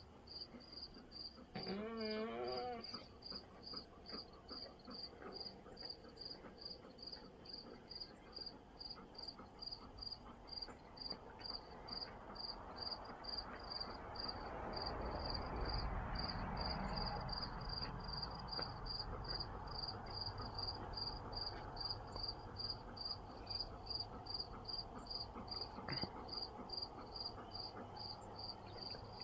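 Crickets chirping steadily at a high pitch, about two chirps a second. About two seconds in, a bullmastiff gives a brief wavering whine, crying for attention. In the middle there is a stretch of rustling noise.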